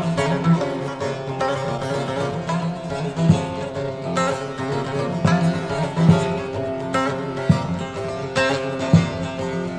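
Instrumental break in a Turkish folk song, with no singing: a plucked string instrument plays the melody over a steady low note.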